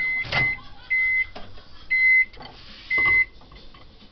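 Microwave oven beeping at the end of its cooking cycle: one steady high beep about once a second, five times. Just after the first beep the door is pulled open with a click, and a plastic tub knocks lightly as it is lifted out.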